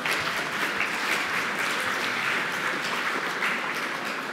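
Audience applauding and laughing.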